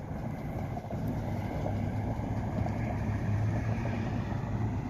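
Steady vehicle noise: a low, even engine hum under road rumble.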